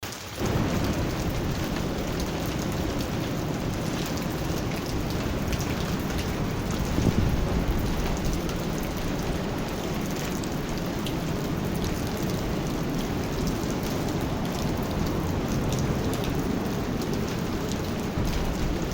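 Steady rain falling on a lake: a dense hiss of drops with many small separate drop ticks, swelling a little louder about seven seconds in.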